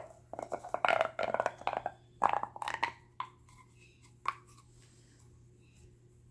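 Fidget noodle toy being worked by hand, its plastic crackling and clicking in quick rapid runs for about three seconds, then two or three single clicks before it goes still.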